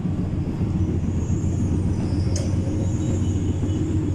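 MTR M-Train on the Disneyland Resort Line running, heard from inside the car: a steady low rumble with a faint high whine and a single sharp click about two and a half seconds in.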